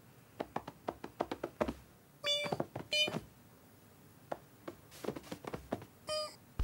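Cartoon sound effects: a run of light taps and clicks, with three short, high-pitched kitten mews, two close together about two seconds in and one near the end.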